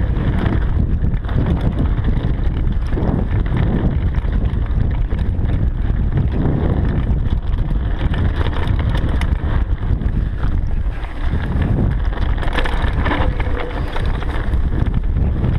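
Mountain bike riding fast down a dirt trail: wind rushing over the microphone, tyres rumbling on the ground and the bike rattling and knocking over rough spots.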